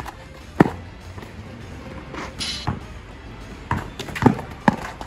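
A basketball being dribbled hard on a court during a drive to the basket: a handful of sharp, irregular bounces, the loudest about half a second in and around four seconds in, with a short sneaker scuff between them.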